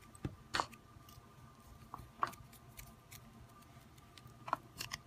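A few faint, separate clicks and taps of hands handling a lump of modelling dough over plastic moulds on a table, over a faint steady hum.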